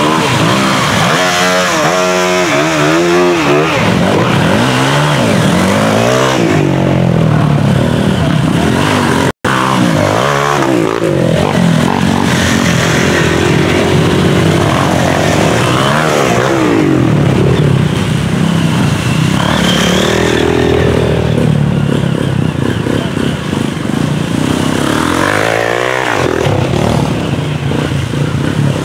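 Several off-road dirt bike engines revving as the bikes ride one after another through deep mud, their pitch rising and falling again and again with the throttle. The sound cuts out for a moment about nine seconds in.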